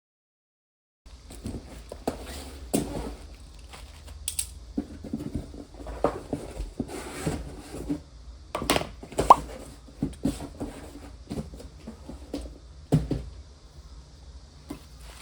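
Irregular knocks, taps and rustles of an album package being handled and opened on a table.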